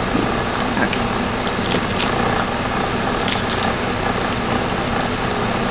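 A steady droning hum over an even hiss, with a few faint clicks.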